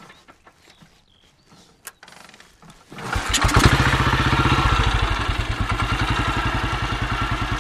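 BSA B31's 350cc four-stroke single-cylinder engine being kick-started: after a few faint clicks it catches about three seconds in, revs up briefly, then settles into a steady idle with even firing pulses.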